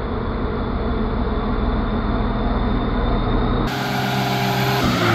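Loaded heavy truck's diesel engine labouring on the climb, a steady low rumble with a thin high whine above it. About three and a half seconds in the sound changes abruptly to a steadier pitched engine hum.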